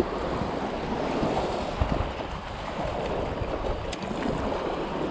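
Wind buffeting the microphone over washing sea water: an even, steady rushing noise with a low rumble.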